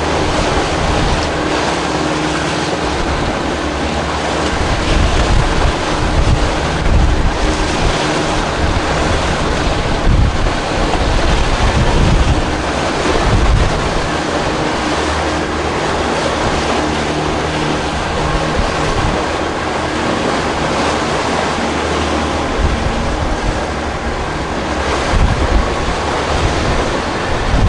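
Wind buffeting the microphone and water washing past a boat, in gusts, with a steady low engine hum underneath.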